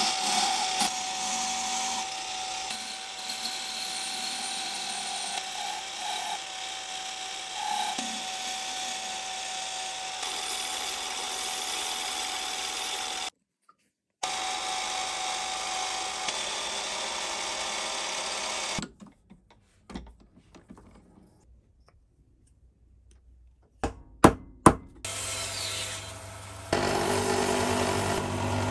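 A power tool running on wood in edited stretches, with a steady motor tone under it; near the end it stops, a few sharp knocks follow, and then a motor hums again.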